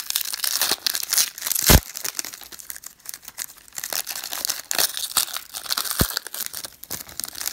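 Wrapper of a 2013 Panini Prestige football card pack being torn open and crinkled by hand. Two sharp cracks stand out, one near two seconds in and one near six seconds.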